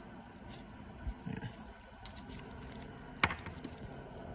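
Small metal fuel-injection-pump parts being handled on a workbench: a sharp click about two seconds in, a louder one a second later, then a few light clinks.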